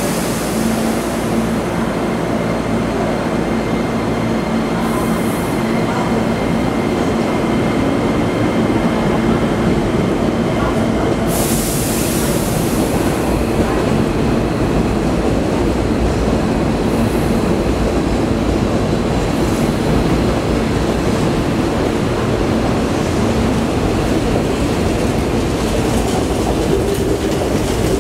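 Hankyu 8000 series electric train at a station platform, standing and then pulling away, with steady running noise. A short hiss comes about eleven seconds in.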